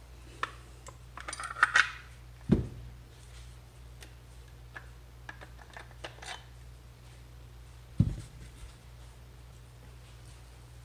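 Metal clicks and clinks of a Stoeger STF3000 20-gauge break-action shotgun being taken down, its forend and barrels coming off the receiver. There are two dull knocks, about two and a half seconds in and about eight seconds in.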